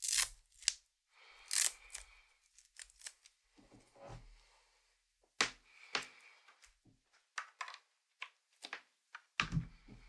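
Small objects being handled, among them a USB-A to USB-C cable: irregular clicks, crackles and rustling, with a heavier knock near the end.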